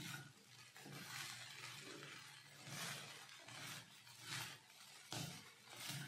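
Silicone spatula stirring sabudana khichdi around a kadhai, with soft scraping and rustling strokes about once a second as the mixture is turned and roasted.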